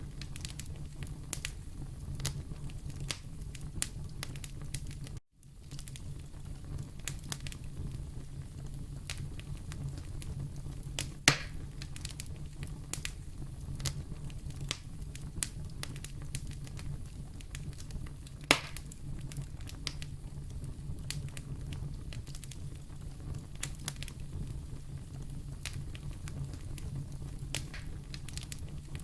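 Wood fire burning in a fireplace: a steady low rumble of flames with constant scattered crackles and two louder pops, about eleven and eighteen seconds in. The sound cuts out for an instant about five seconds in.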